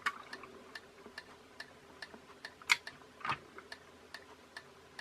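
Faint, regular ticking about twice a second over a faint steady hum, with two louder clicks a little past the middle.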